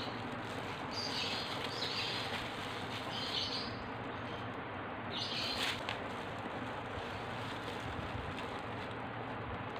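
Thin plastic glove crinkling and rustling as a hand scoops out durian flesh, in several short crinkles over a steady background hiss.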